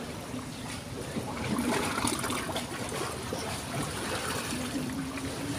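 River water trickling and flowing steadily, with small scattered ticks.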